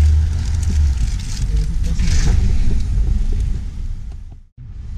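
Road and engine noise inside a moving car: a low rumble, heaviest in the first second, over steady tyre hiss. It drops out for an instant near the end.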